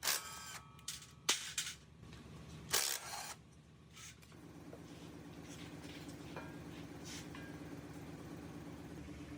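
A few sharp knocks and clatters, then about four seconds in a steady machine hum starts and keeps going.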